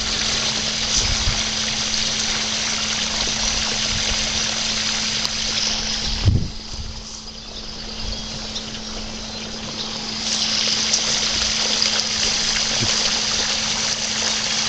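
Water pump running with a steady hum while water rushes and trickles, pumping out a flooded basement. About six seconds in there is a low thud, and the rushing hiss drops away for a few seconds before it comes back.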